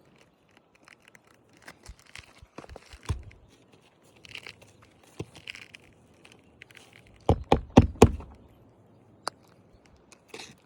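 Wind-damaged asphalt roof shingle being lifted, bent and slid back into place: scraping and crinkling with scattered clicks, then a quick run of about five loud sharp cracks a little past the middle.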